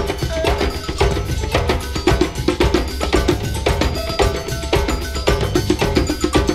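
Club dance music mixed from vinyl records: a steady beat with busy percussion over heavy bass.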